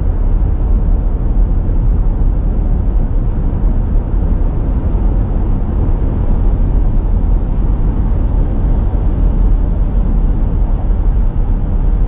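Steady low rumble of a car cruising at highway speed: tyre and engine noise heard from inside the cabin.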